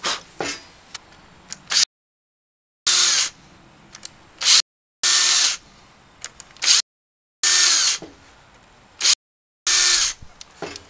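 DeWalt 18-volt cordless drill boring holes into a wooden board in four brief bursts a couple of seconds apart, each a short loud run of the drill followed by quieter clicks and handling. Each burst is cut off abruptly by dead silence.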